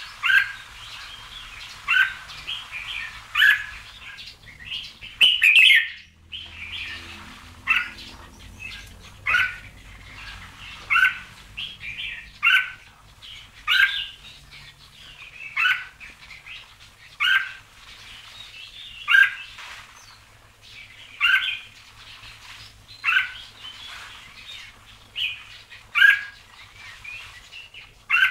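Red-whiskered bulbul singing, short warbled phrases repeated about every one and a half to two seconds.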